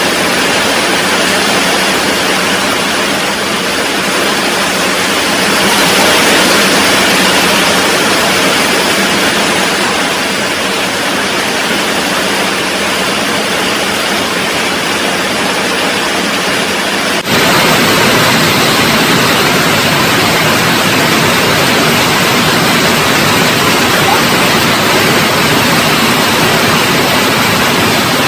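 Heavy rain falling, a dense steady hiss. About two-thirds of the way through it changes suddenly to a deeper, fuller sound.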